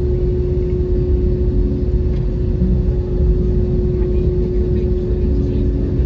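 Jet airliner cabin noise while taxiing: the engines run with a steady hum and one constant tone over a low rumble.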